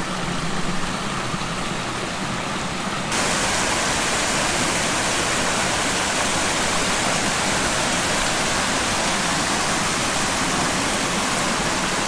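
Rushing water of a rocky woodland stream cascading in small waterfalls: a steady hiss that steps up louder and brighter about three seconds in.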